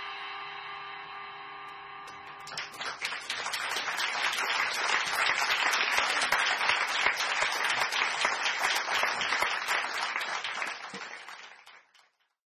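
The last held notes of the piece ring on, then about two and a half seconds in an audience breaks into applause, which swells and then fades away near the end.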